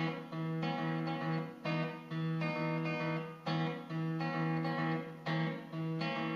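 Background music of strummed guitar chords, a new chord struck about every second.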